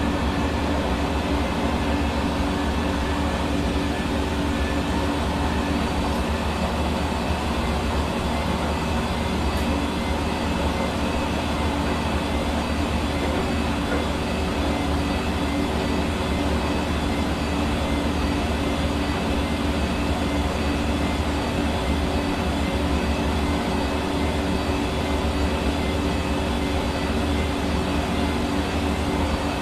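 Hair dryer running steadily: a constant rush of blown air with the even hum of its motor, unchanging throughout.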